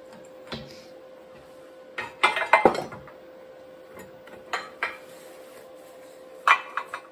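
Metal parts clinking and knocking as a car steering rack and its tie rods are handled on a steel frame. There is a rattling cluster of knocks about two seconds in, the loudest part, then a few single clinks and a short group near the end, over a steady faint hum.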